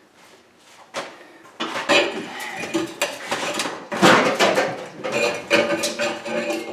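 Metal clanking and scraping: a rapid, irregular run of ringing metal knocks that starts about a second and a half in, after a near-quiet start.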